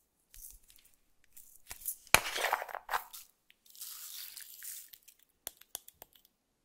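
A sharp plastic click about two seconds in, followed by a short rustle as a small plastic container of decorations is handled over the slime. Then fine glitter is sprinkled onto the clear slime as a soft hiss, and a few light ticks follow as small pieces drop in.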